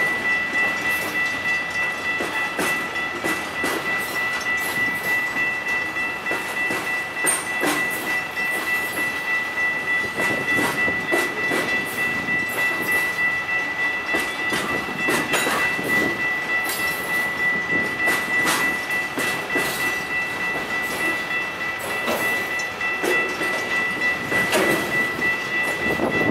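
Grade-crossing warning bell ringing without pause while a string of freight cars passes over the crossing, wheels clacking and knocking irregularly over the rail joints.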